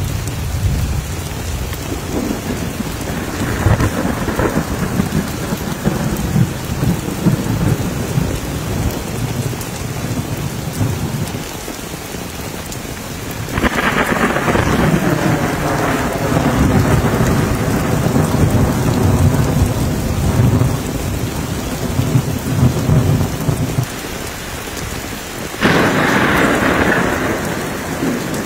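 Heavy rain pouring steadily during a thunderstorm, with thunder rumbling. The sound turns suddenly louder about halfway through and again near the end.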